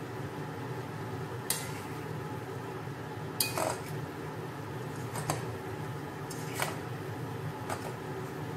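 Metal utensils clinking and scraping against a pan as stir-fried noodles are tossed: about five separate clinks, the loudest a little past the middle with a short scrape after it, over a steady low hum.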